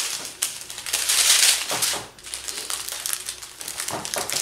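Small plastic bags of diamond painting drills crinkling and rustling as they are handled and laid out, loudest about a second in.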